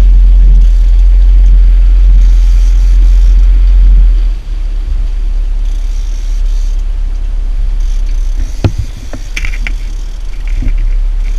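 Loud, steady low rumble on a small fishing boat underway, easing somewhat about four seconds in, with a single sharp knock about nine seconds in.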